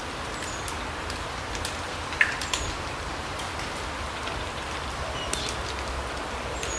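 Forest ambience in a larch wood: a steady hiss with scattered drips and light ticks, one sharper tick about two seconds in, and a few short high bird calls.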